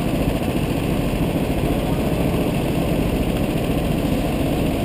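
Go-kart engines idling in a line of stopped karts: a steady, loud, low running noise.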